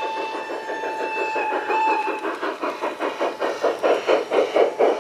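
LGB garden-scale Mallet steam locomotive model blowing its whistle, one steady tone with a brief break that ends about two seconds in, over fast rhythmic chuffing that grows louder as the engine passes close.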